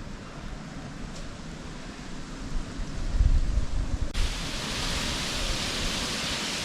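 Wind and rain of a hurricane: low gusts buffet the microphone, then about four seconds in a louder, steady hiss of wind-driven rain sets in abruptly.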